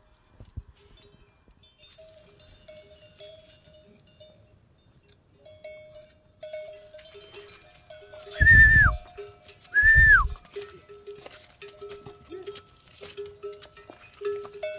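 Livestock in a village, with faint repeated clinking tones like animal bells throughout. About eight and a half seconds in come two loud, high-pitched calls a little over a second apart, each holding one pitch and then dropping away.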